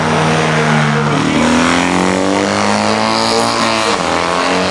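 Vintage racing sidecar outfit's engine running hard as it passes, its pitch dipping and then rising about a second in as it accelerates out of the bend.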